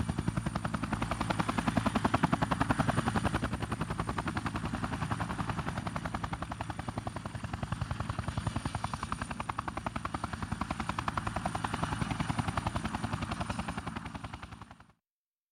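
Helicopter rotor beating rapidly, with a steady high-pitched whine over it. It swells louder a couple of seconds in and again near the end, then fades and cuts off.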